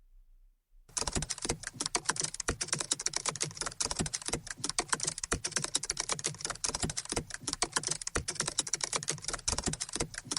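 Rapid key-typing clicks, a dense unbroken run of key strikes that starts about a second in.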